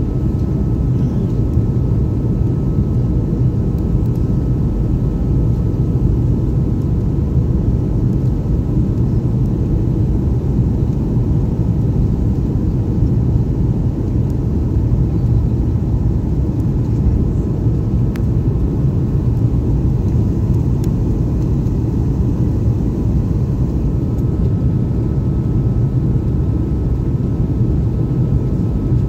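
Jet airliner cabin noise on final approach with flaps extended: a steady low rumble of engines and rushing air, with a faint steady whine above it, heard from inside the cabin.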